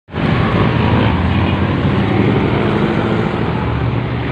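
Steady road traffic noise with a low engine hum running close by.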